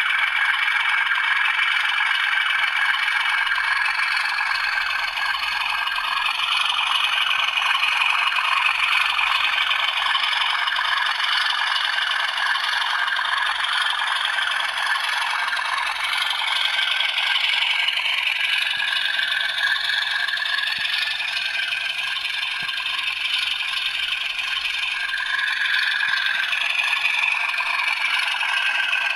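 Sound-fitted model Class 37 diesel locomotives running, their English Electric engine sound played through small onboard speakers: a steady, thin diesel drone with no bass, shifting in pitch a little in the second half.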